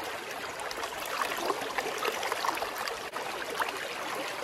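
River current running steadily, with a light babbling trickle.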